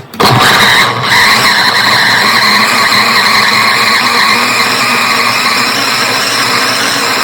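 Electric kitchen blender running at full speed, a loud steady motor whine with the churning of its contents. It starts just after the opening, stops and restarts about a second in, then runs on steadily.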